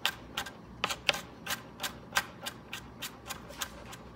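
Chef's knife mincing garlic on a plastic cutting board: quick, fairly even knocks of the blade on the board, about three a second.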